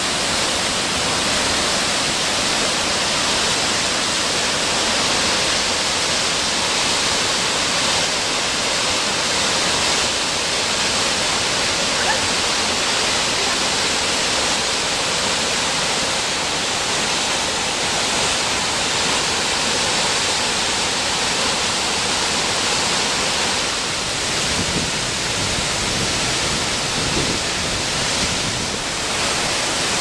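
Large waterfall with a heavy flow: a loud, steady, even rush of falling water.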